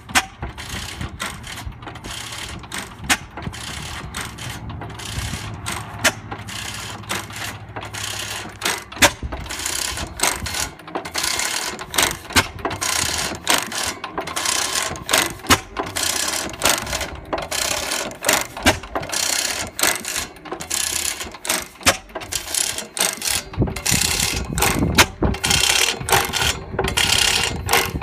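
12 hp Sattley throttle-governed stationary engine running slowly on propane, a steady beat of sharp mechanical clacks from its working parts.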